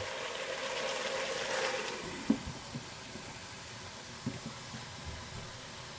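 Beet, carrot and potato stew sizzling and steaming in a pot, a soft steady hiss that eases about two seconds in, with a few small soft knocks.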